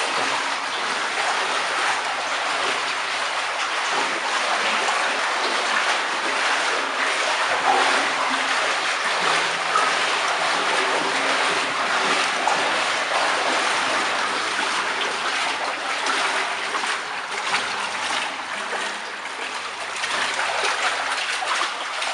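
Wastewater flowing and splashing steadily along an old collector sewer channel.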